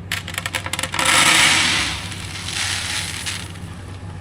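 Harvested soybeans poured out of a cap into a bucket: scattered rattling clicks of the first beans, then a dense rush of beans pouring for about a second, and a second, shorter pour a little later.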